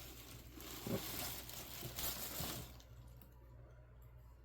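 Faint rustling and handling of packaging as vinyl doll kit parts are unwrapped, with a couple of soft knocks; it stops about two-thirds of the way through.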